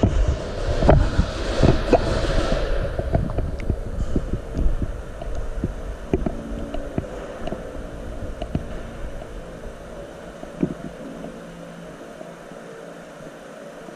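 Footsteps and gear-handling knocks picked up by a body-worn camera as an airsoft player moves through the arena: close thuds come densely for the first few seconds, then thin out to scattered faint clicks and taps that fade away.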